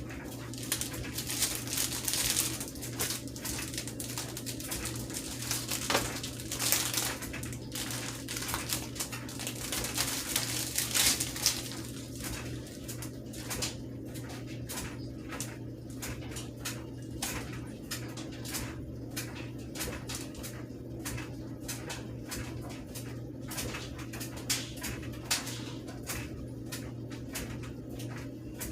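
Rustling and clicking of packaging being handled and cut open, busiest in the first dozen seconds, over a steady low hum.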